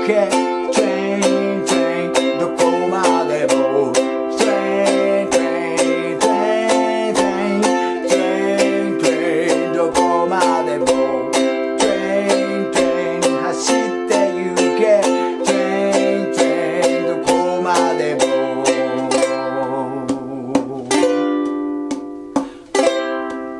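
Ukulele strummed in a steady, quick rhythm with a man singing along. Near the end the strumming thins out and a chord is struck and left to ring, then restruck a couple of times.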